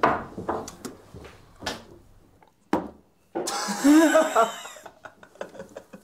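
Light knocks and rubbing on a wooden table, then a sharp click, and about three seconds in one loud, shrill, wavering cry lasting about a second and a half.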